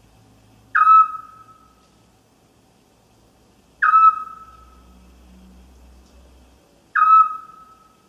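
An owl's single whistled call, a clear note with a sharp start that fades over about a second, repeated three times about three seconds apart.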